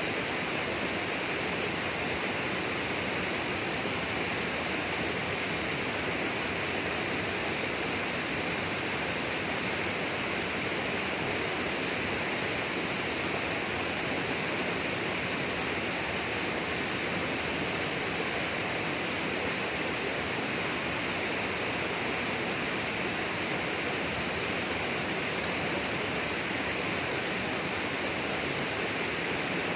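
Steady, unbroken rush of flowing water in a rainforest.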